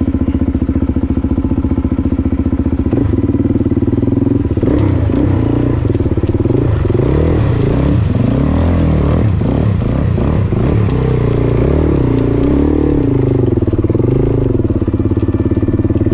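Motorcycle engine idling. From about three seconds in, engines rev up and down over one another, then settle back to a steady idle near the end.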